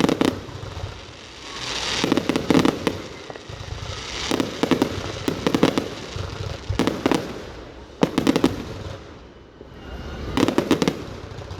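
Fireworks display: shells bursting in clusters of sharp bangs and crackles, a new burst every one to two seconds.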